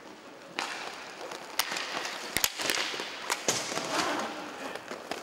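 Inline hockey play: a string of sharp clacks from sticks and the plastic puck, starting about half a second in and coming irregularly, over a steady rushing noise.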